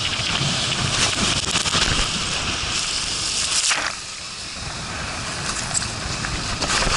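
Rushing water and wind noise on the camera microphone as a rider speeds down a steep open water slide chute, water spraying over the camera. The rush eases at about four seconds in as the slide levels out into its curved run-out.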